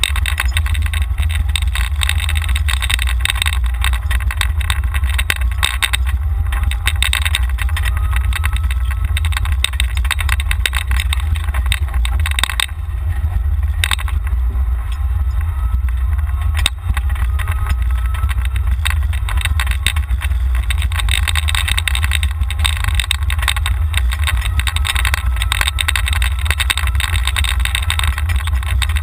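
Golf cart driving along, heard from a camera mounted on it: a heavy, steady wind rumble on the microphone with rattling over it, and a faint whine that rises in pitch a few times as the cart picks up speed.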